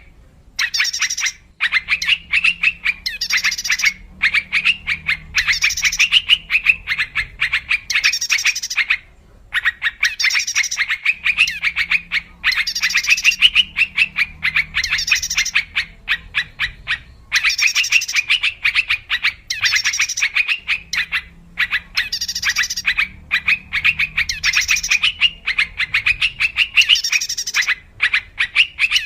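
Yellow-vented bulbul (trucuk) lure recording: repeated phrases of rapid, bubbly chattering, each about a second or two long with short pauses between them. A faint low hum sits under some stretches.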